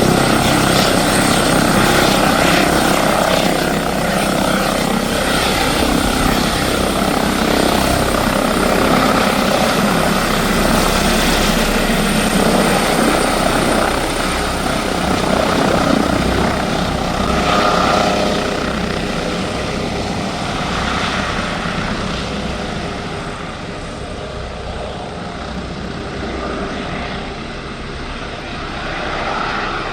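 Airbus H145 D3 helicopter's twin turbine engines and rotors running under power, a loud steady whine and rotor noise. Through the second half the sound fades and loses its high end as the helicopter moves away after take-off.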